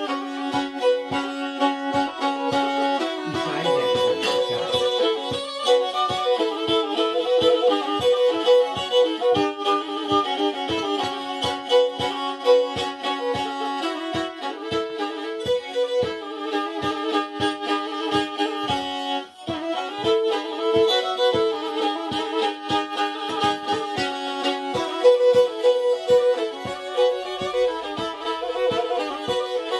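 Black Sea kemençe, a small three-stringed bowed fiddle, played solo: a quick tune bowed on two strings at once, with a steady drone note beneath the melody and a regular pulse of strokes about two to three times a second. It breaks off briefly about two-thirds of the way through and then carries on.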